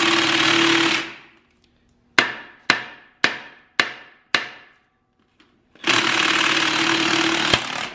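Cordless impact wrench hammering at the timing-cover bolts of a four-valve V8 in two runs, the first stopping about a second in and the second lasting about two seconds near the end. Between the runs come five sharp, ringing knocks on metal, about two a second.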